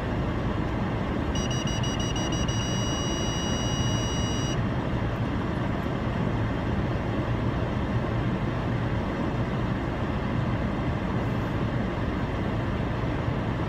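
Steady low rumble of a stationary car's idling engine, heard from inside the car. About a second and a half in, a high electronic beep starts with rapid pulses, then holds as one steady tone for about three seconds and stops.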